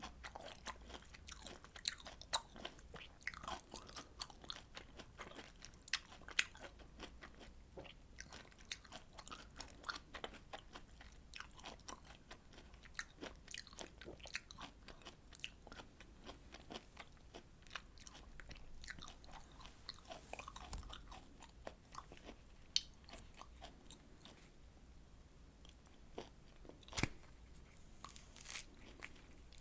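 Close-miked chewing of citrus fruit: a rapid run of wet clicks and small crunches, dense at first and thinning out in the second half, with one sharper click near the end.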